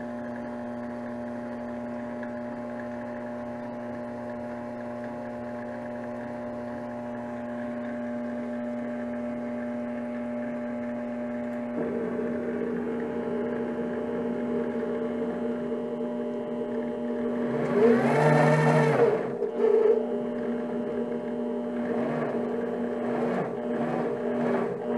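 Grizzly G0765 mini-lathe running, with a steady hum and whine from the spindle motor. About twelve seconds in, the stepper-driven carriage feed starts and adds a buzzing whine. Around two-thirds of the way through, the pitch sweeps up and back down as the spindle speed is raised and lowered, with the feed following it under real-time encoder feedback.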